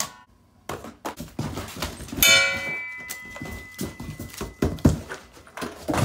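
Knocks and thuds of bike parts and a cardboard box being handled during unpacking, with a sharp strike about two seconds in that rings on for a couple of seconds.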